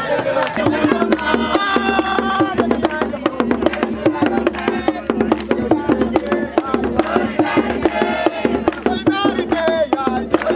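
Voices singing together over fast, dense percussion.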